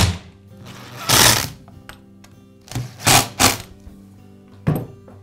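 Five or so short bursts of scraping and clattering from handwork on a Poulan chainsaw's plastic recoil starter housing as it is screwed back onto the saw. Soft background music plays under them.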